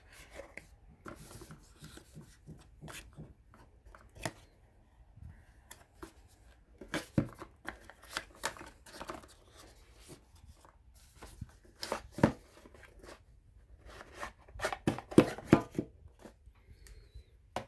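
Cardboard perfume box and its black card insert being handled and slid apart: an irregular run of rustles, scrapes and sharp clicks, with a cluster of louder knocks near the end.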